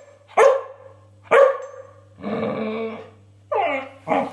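Border collie puppy barking and growling at a piece of raw beef it won't eat. Two sharp barks come first, then a longer rough growl of about a second, then a falling yowl and one more bark near the end.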